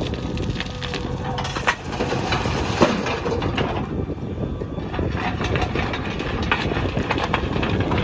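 Backhoe loader's diesel engine running with a steady low rumble, with scattered knocks and clatter from the digging and loading of soil, and wind on the microphone.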